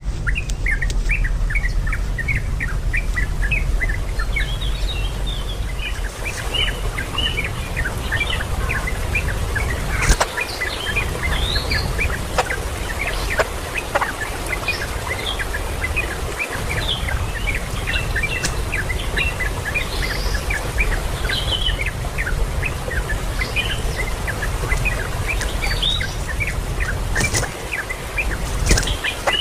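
Many small birds chirping continuously in quick, overlapping short notes, over a steady low rumble, with a few sharp clicks.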